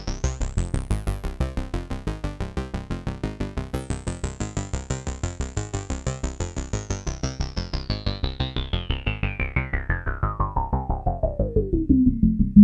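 Arturia MatrixBrute synthesizer playing a fast repeating sequence of short notes through a Dave Smith Curtis filter, the Prophet 6 type. The filter's resonant peak sweeps up to a high whistle, holds there, then sweeps slowly back down to a low, dark tone near the end.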